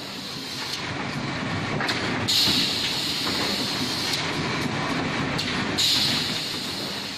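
Automatic plywood feeding machine running with steady machine noise, with two louder hisses, about two seconds in and again near six seconds, each lasting a little under two seconds.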